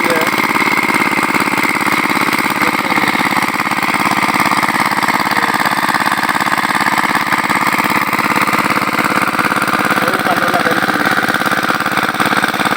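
A small engine running steadily, its firing an even, rapid beat.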